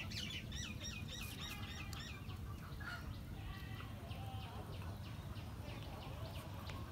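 Small birds chirping: a quick run of repeated short chirps in the first two seconds, then scattered calls, over a steady low background noise.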